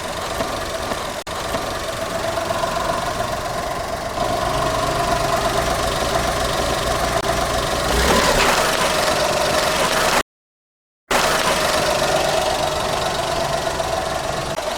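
Car engine running steadily as the car creeps forward, with a deeper rumble coming in about four seconds in. A brief louder burst of noise comes about eight seconds in, and the sound cuts out for a moment a couple of seconds later.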